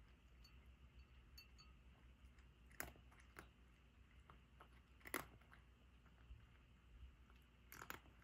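A cat eating dry kibble: soft, scattered crunches as it chews, with three sharper crunches spaced a few seconds apart.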